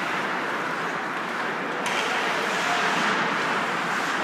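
Ice hockey game in play in an indoor rink: a steady wash of arena noise from skates on the ice and the small crowd, with one sharp click about two seconds in.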